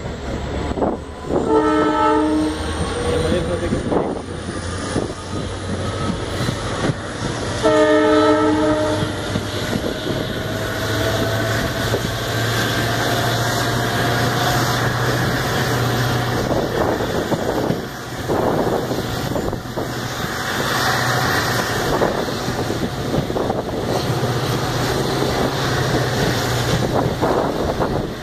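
EMD GT46PAC (WDP4) diesel-electric locomotive sounding its horn in two blasts of about a second and a half each, roughly six seconds apart. Its two-stroke V16 engine then runs hard under throttle as the train accelerates, a steady low drone with a whine rising slowly in pitch.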